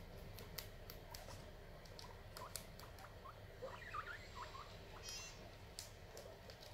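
Guinea pigs chewing and tugging at corn husks: faint crisp crunching clicks throughout, with a few short squeaks about halfway through as they squabble over the husk.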